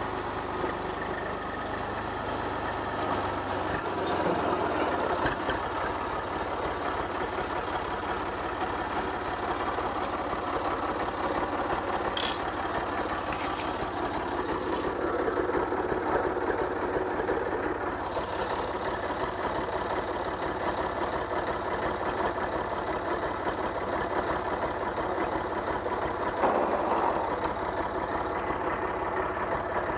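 Ursus tractor's diesel engine running steadily as the tractor is driven, a little louder from about four seconds in. Two brief sharp clicks a little under halfway through.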